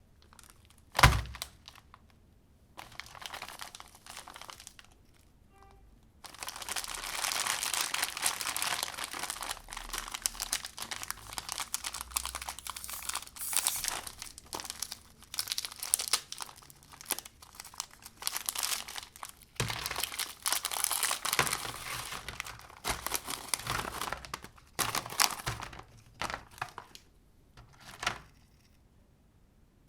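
Plastic cookie packaging crinkling and being torn open in long crackly stretches with short pauses, after a single sharp knock about a second in.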